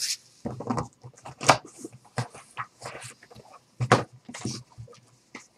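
Irregular rustling, clicking and tapping of trading cards and card packs being handled and opened on a table.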